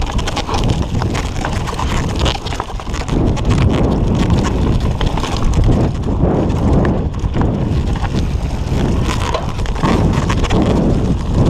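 Mountain bike rattling and knocking as it rides fast over a rough dirt trail: a continuous rumble of tyres on the ground, with many quick clicks and clatters from the bike and camera mount over the bumps, and wind buffeting the microphone.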